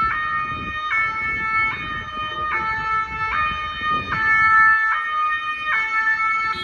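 Ambulance's two-tone siren, alternating between a high and a low note, each held just under a second. It sounds over low road rumble and cuts off abruptly at the end.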